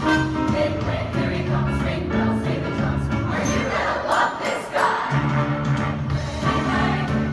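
Large mixed choir singing held chords in a show-tune medley; the held chords break off for about a second near the middle and then return.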